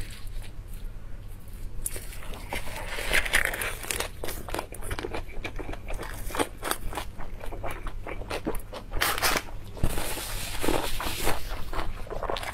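Close-miked biting and chewing of a crisp lettuce leaf wrapped around braised pork, full of crunches and wet mouth sounds; the crunching starts about two seconds in.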